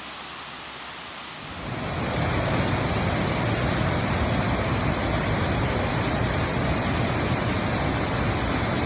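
Waterfall, a steady loud rush of falling water that comes in abruptly about two seconds in, after a softer hiss.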